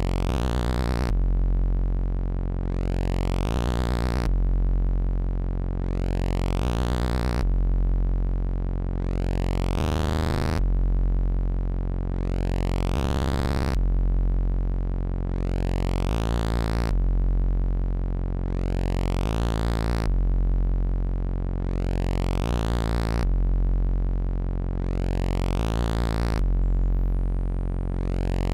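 Infernal Noise Machine desktop analog synthesizer, self-patched, playing a low drone with a repeating cycle about every three seconds: a bright swell whose upper tones sweep upward, then a darker stretch, with the low notes fluttering at the end of each swell.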